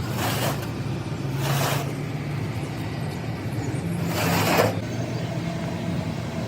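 An engine running steadily, with three short bursts of hissing over it; the last burst is the loudest.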